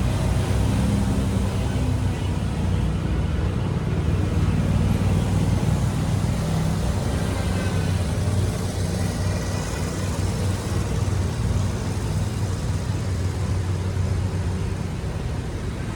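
Steady low rumble of road traffic, with a few faint high chirps about halfway through.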